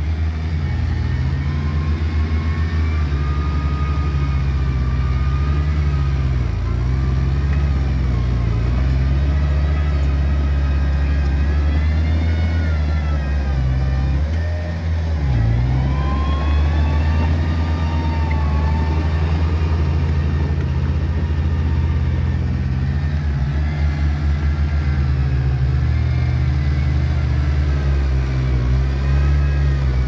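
Diesel engine of heavy earthmoving equipment running steadily under load, its pitch rising and falling as it revs up and eases off, with a brief dip about halfway through.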